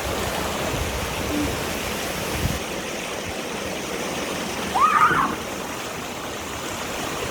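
Steady rush of a waterfall pouring into a pool. A brief voice call cuts through about five seconds in.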